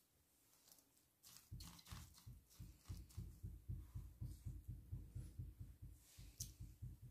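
Faint rapid panting of a dog, a steady run of about five breaths a second that sets in a second and a half in.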